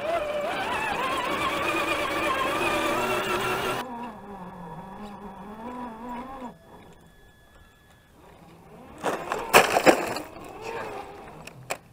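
An RC crawler's electric motor and gears whine close up, the pitch rising and falling with the throttle. After a sudden change about four seconds in, a fainter, lower motor whine follows. Near the end come a few sharp, loud clacks and crackles, like the model's tyres and chassis hitting rocks and twigs.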